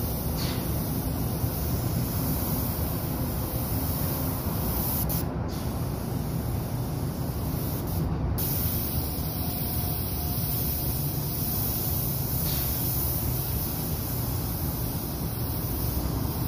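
Paint spray gun hissing steadily as paint is sprayed onto a steel beam, the hiss breaking off briefly twice, about five and eight seconds in, over a steady low rumble.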